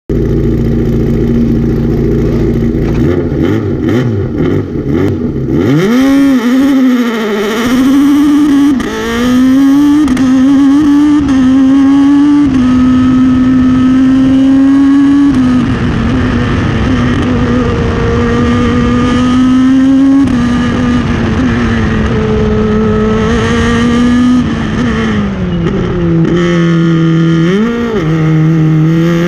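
Ligier JS53 Evo3 sports prototype's engine heard from inside the open cockpit, driven hard at high revs. Its pitch sweeps up and down, then holds high with brief drops at gear changes and lifts for corners.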